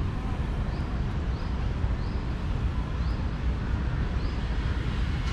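Steady low rumble of distant city traffic, with a faint short high note repeating about every three-quarters of a second.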